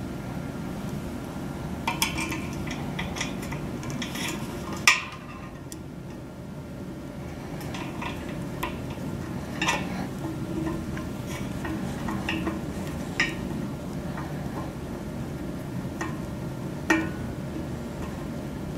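Irregular light metallic clicks and scrapes of a hand tool tightening the set screws that lock the feed of an ePMP Force 100 dish antenna, with one sharper click about five seconds in, over a steady low hum.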